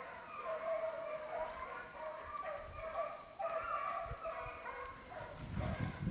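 A pack of beagles baying in chorus, several hounds' voices overlapping without a break, typical of hounds giving tongue as they run a rabbit's scent line. Near the end there is a close rustle and thumps.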